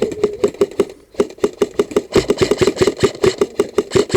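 Quick, even run of knocks and rattles, about six a second, from a body-worn camera and kit jostling as the player hurries downhill on foot. A scraping hiss of feet on loose ground joins in about halfway through.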